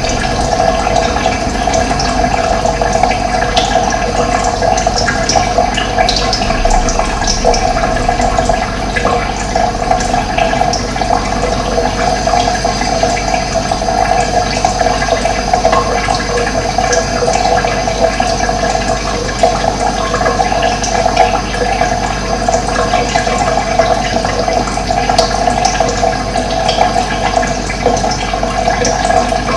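Running water flowing steadily with an even rush, with occasional short high bird chirps over it.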